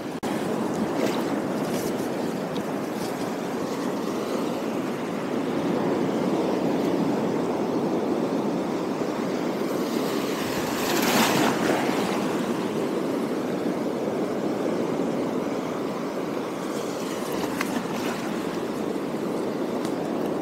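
Sea waves washing over shoreline rocks in a steady surf rush, with one louder surge about halfway through.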